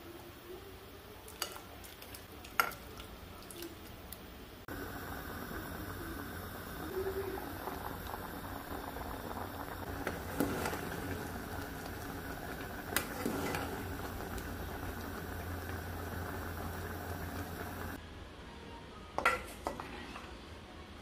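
A ladle clinks a few times against an aluminium pot, then the pot of bilo-bilo, rice balls in a milky broth, bubbles steadily at a simmer for about thirteen seconds, with a couple of knocks of the spoon against the pot. Another clink of utensil on pot comes near the end.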